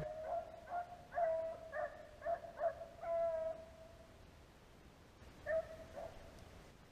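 Beagle baying on a rabbit's trail: a run of short, pitched yelps ending in a longer drawn-out bawl, then one more call about five and a half seconds in. This is hound music, the dogs giving tongue while running the rabbit.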